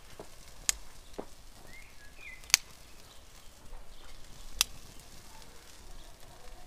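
Four sharp, isolated clicks spread over several seconds, the loudest about two and a half seconds in, over a quiet outdoor background with a couple of faint short chirps.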